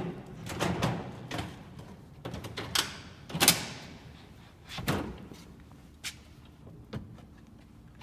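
Drawers of a newly assembled IKEA kitchen base cabinet being pulled open and pushed shut: a string of short runner slides and knocks, the loudest knock about three and a half seconds in.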